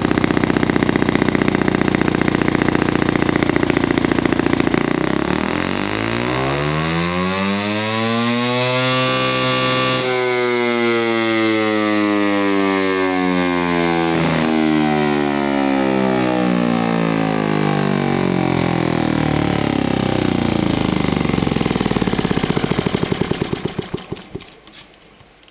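Saito FA-40a single-cylinder four-stroke model engine, running on methanol through electronic fuel injection, driving a heavy inertia flywheel on a dyno. It runs steadily, then about five seconds in its pitch climbs steeply as it accelerates the flywheel to a top speed of about 15,300 rpm. From about ten seconds in the pitch falls slowly as it winds down, and it stops near the end.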